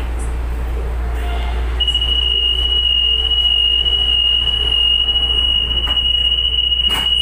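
Light rail train's door-closing warning tone: one steady high beep that starts about two seconds in and holds, over the train's low steady hum while it stands at the platform.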